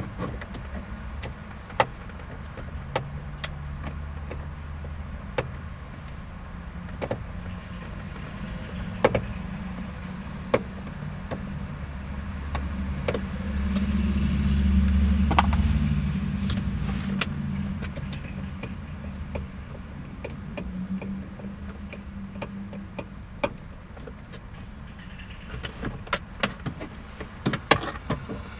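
Scattered sharp clicks and taps of hand tools and fasteners while bolts are worked loose under a car's dashboard, over a low vehicle rumble that swells about halfway through as a vehicle passes. A quick run of clicks comes near the end.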